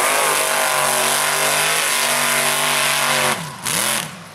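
Mud racing truck's engine held at high revs as it runs through the mud pit, with a hiss of spray on top. About three seconds in it drops off and revs up and down twice in quick blips.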